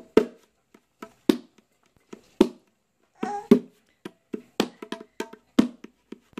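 A baby's hand slapping the plastic toy tray of an activity jumper: irregular hollow knocks, about sixteen, coming faster from about four seconds in.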